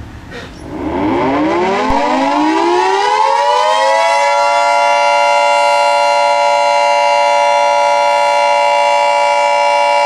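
Civil defense siren winding up over the first few seconds, several tones rising together, then holding a steady, loud chord.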